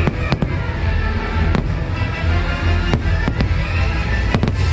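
Fireworks shells bursting in a string of sharp bangs, with three in quick succession near the end, over the show's music soundtrack.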